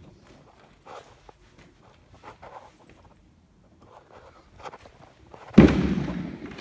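Footsteps scuffing over a debris-strewn concrete floor. About five and a half seconds in comes a sudden loud bang that rings and echoes away over about a second.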